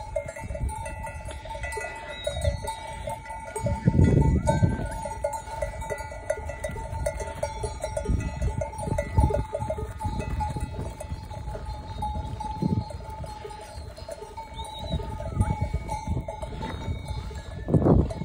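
Bells on a flock of sheep ringing and clanking without a break as the flock walks. Low rumbling bursts come through under the bells, loudest about four seconds in and near the end.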